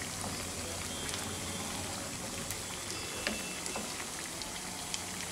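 Potato-and-semolina chops deep-frying in hot oil in a kadai: a steady sizzle with scattered small pops and crackles.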